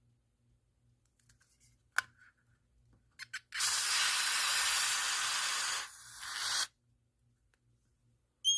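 Aerosol can of smoke-detector test spray hissing for about two seconds, dropping briefly, then giving a shorter final spurt, with a sharp click about two seconds in. Right at the end the smoke alarm it was sprayed at begins to sound.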